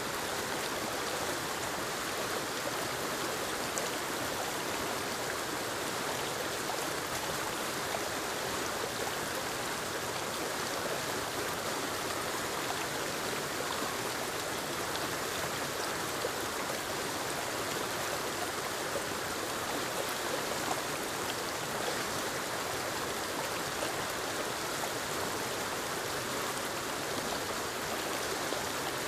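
Small forest waterfall tumbling over rocks into a stream, a steady, even rush of falling and splashing water.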